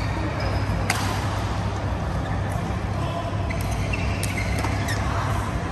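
Badminton rally: sharp cracks of rackets hitting the shuttlecock, one about a second in and a few more in quick succession near the end, with short squeaks of shoes on the court floor over a steady low hum.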